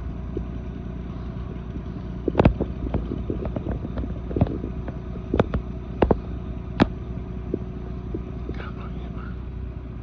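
A vehicle engine running steadily, with a series of sharp cracks and snaps: the loudest about two and a half seconds in, then several more over the next four seconds.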